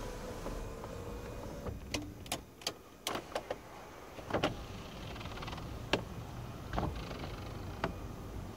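Power panoramic roof panel moving: its electric motor hums steadily for about the first second and a half and then stops, followed by a run of sharp clicks and knocks from the roof mechanism.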